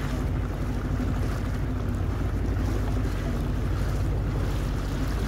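Boat engine running with a steady low hum, with wind buffeting the microphone and sea noise.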